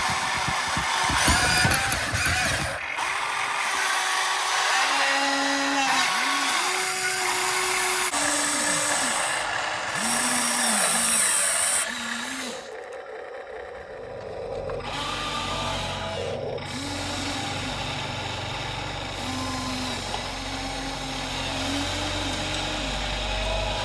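Radio-controlled excavator's electric motors whining as it works, the pitch rising, holding and falling again with each short movement. A low rumble joins about halfway through.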